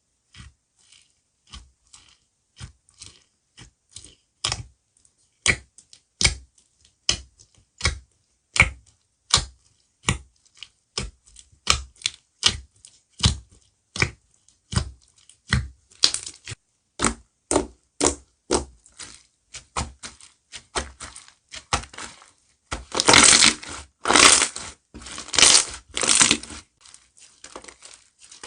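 Slime being pressed and worked by hand close to the microphone, giving a regular series of sharp popping clicks at a little under two a second. Near the end the pops give way to a few seconds of denser, louder crackling.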